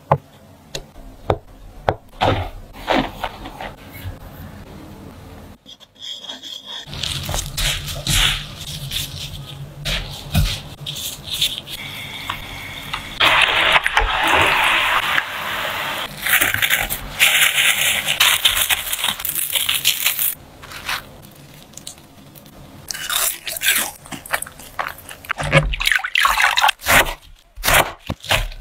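A knife cutting a block of tofu on a wooden board, with light taps. Then tofu cubes sizzling and bubbling in deep hot oil, loudest about halfway through. Near the end, a knife cuts through a head of napa cabbage.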